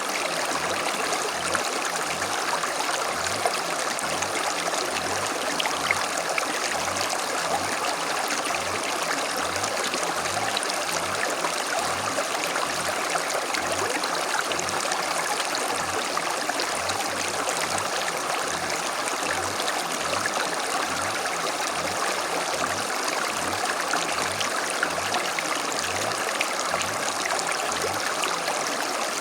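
Small stream flowing and burbling over stones, a steady dense rush with fine splashy detail.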